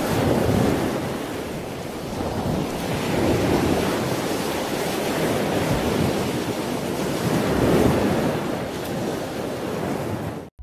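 Ocean surf with wind: waves washing in, the rush swelling and easing several times.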